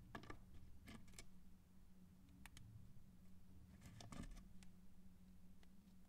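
Faint clicks and taps of small plastic Plus-Plus pieces being handled and pressed together, in a few small clusters, over a steady low hum.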